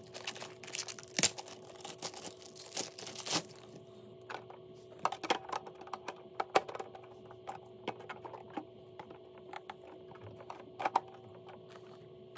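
A clear plastic parts bag crinkling for the first few seconds, then scattered light clicks and taps of hard plastic toy parts being handled and fitted onto the H.I.S.S. tank.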